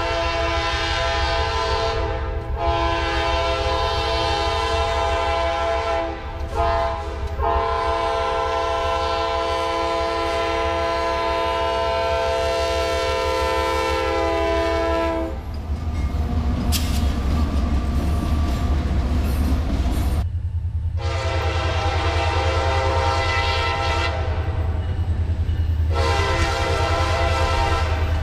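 CSX freight diesel locomotive horn sounding a chord in several blasts, the last of them long. Then the low rumble of the diesel engines and wheels as the locomotives pass. More horn blasts come near the end.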